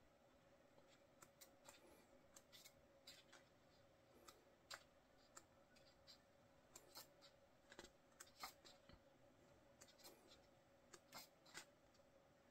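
Faint soft flicks and rustles of paper as the pages of a softcover photo book are turned one after another, over a faint steady hum.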